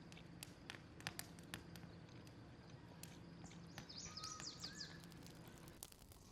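Faint night-time outdoor ambience: scattered sharp clicks and crackles, a brief chirping call about four seconds in, over a low steady hum that stops near the end.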